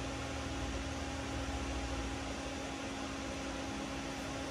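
Ice maker running: a steady mechanical hum carrying a faint fixed tone, over an even hiss.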